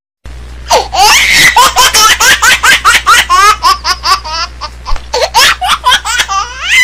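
High-pitched laughing: a long run of quick, repeated laughs starting a moment in, over a steady low hum.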